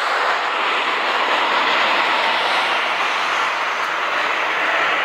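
Airbus A320's two CFM56 turbofan engines running at taxi power as the airliner rolls slowly past, a steady rushing noise.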